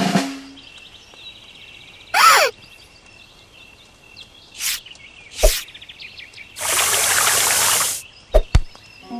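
Cartoon sound effects over faint birdsong ambience: a short falling glide about two seconds in, then a hiss of water spraying from a garden hose for about a second and a half near the end, followed by two quick clicks.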